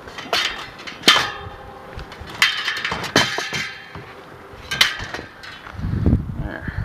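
Metal bike parts clanking and clattering as they are handled and set down: a string of irregular knocks, each with a short metallic ring. Wind rumbles on the microphone near the end.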